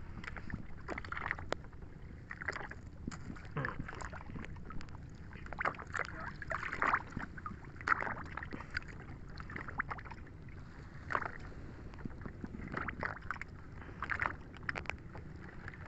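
Seawater splashing and sloshing in short, irregular bursts as a line of cottonii seaweed is hauled hand over hand out of the sea alongside a small boat, over a low steady rumble.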